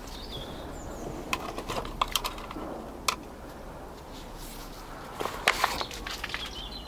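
Scattered sharp clicks and light knocks of hands handling tomato plants and plant pots during potting on, bunched around a second in and again about five seconds in. A bird chirps briefly near the start.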